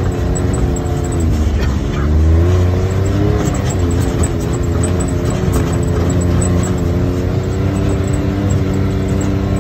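Side-by-side UTV's engine running as it drives a rough dirt trail. Its pitch dips a couple of seconds in, then climbs again as it speeds back up, with scattered light clicks and rattles from the machine over the ground.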